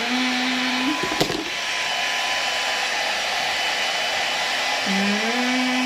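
Handheld electric hair dryer blowing steadily while drying a child's hair, with one sharp click about a second in. A low held tone sounds over it at the start and again near the end.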